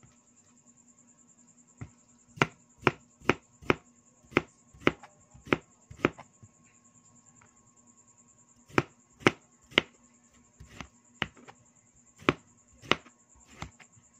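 Cleaver slicing a peeled cucumber into rounds on a plastic cutting board: sharp knocks of the blade hitting the board, about two a second, in two runs with a short pause between.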